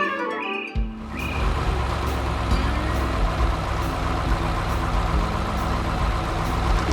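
A clarinet-like tune ends under a second in, then a heavy vehicle's engine rumble starts suddenly and runs steadily.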